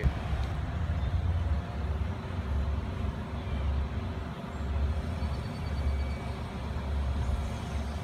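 Uneven low rumble of wind buffeting the microphone, rising and falling, with a faint steady hum behind it.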